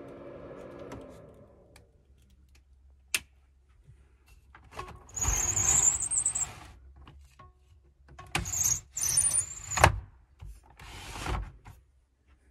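The pleated blackout blind and insect screen of a motorhome window being slid along its rails by hand in three strokes, each a scraping rush with a high squeal. Before that, a steady hum stops about two seconds in and a single sharp click follows.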